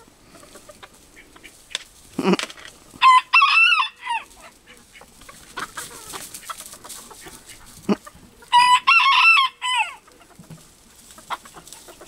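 Rooster crowing twice, about three seconds in and again about eight and a half seconds in, each crow lasting a little over a second, with a few short clucks between.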